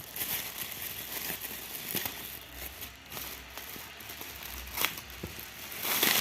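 Parcel packaging being handled and opened: rustling and crinkling with scattered light clicks and a sharper click just before five seconds in, and the loudest rustle near the end.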